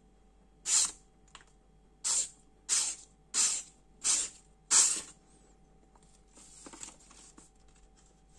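Stainless-steel blade of an SOG Aegis FL folding knife slicing through a sheet of paper in six quick, crisp swishes, about one every two-thirds of a second. A fainter rustle of paper follows near the end.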